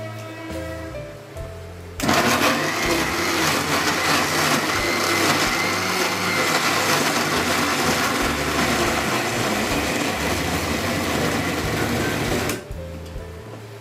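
Electric kitchen mixer grinder running, blending potatoes with ground ginger and green chillies into a paste. It starts about two seconds in, runs steadily for about ten seconds and stops suddenly near the end.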